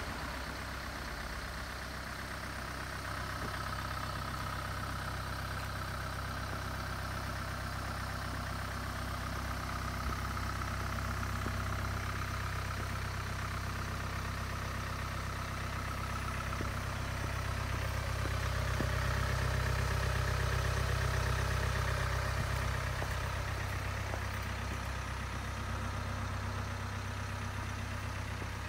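Range Rover Evoque's engine idling steadily, a low even hum that grows slightly louder for a few seconds about two-thirds of the way through.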